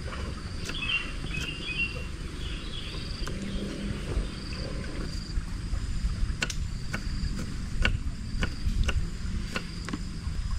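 Outdoor ambience: a steady high insect buzz over a low rumble, with faint bird chirps in the first few seconds and scattered small clicks.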